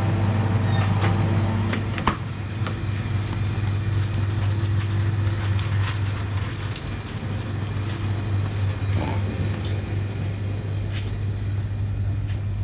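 Supermarket background: a steady low hum from air conditioning and refrigeration, with scattered light clicks and knocks.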